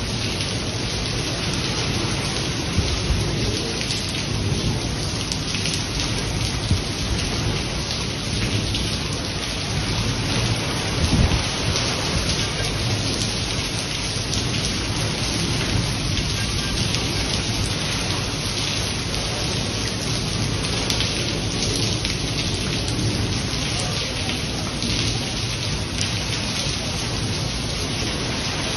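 Heavy rain pouring steadily on a garden's lawn and foliage, a dense even hiss with a deep low rumble underneath.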